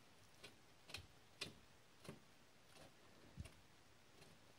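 Faint, irregular clicks and taps, about half a dozen, from fingers turning a loosened bolt on the ignition coil's mounting bracket.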